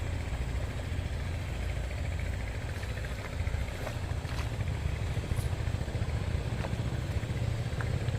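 A small engine running at a steady idle, a low even rumble with a few faint ticks over it.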